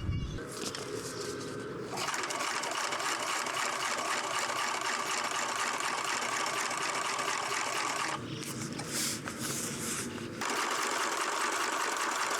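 Electric sewing machine stitching steadily in two runs, about six seconds and then, after a short pause, about two more seconds, preceded by a thump at the start.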